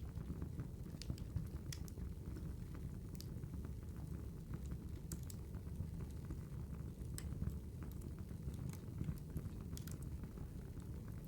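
Wood fire crackling: irregular sharp pops and snaps over a steady low rumble of burning logs.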